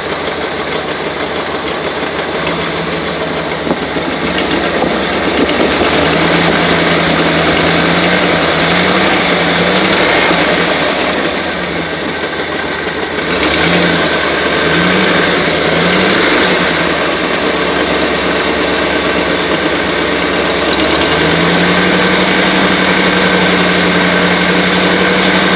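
Engine running with an exhaust leak, loud and noisy. It is blipped up and down in speed several times through the middle, then held at a higher steady speed near the end.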